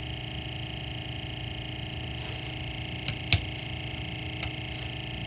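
Sony TC-K65 cassette deck's brushless (BSL) capstan motor running with a steady hum and a high whine, the sound of worn motor bearings. Three sharp clicks of the front-panel controls come about three and four and a half seconds in, the second the loudest.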